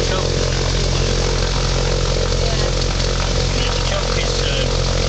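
Thruster T600N microlight's engine and propeller running steadily at an even speed, heard from the cockpit.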